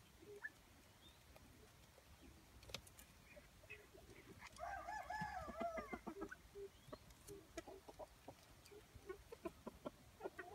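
Brakel chickens clucking softly in short scattered notes, with one louder drawn-out call of under two seconds about halfway through.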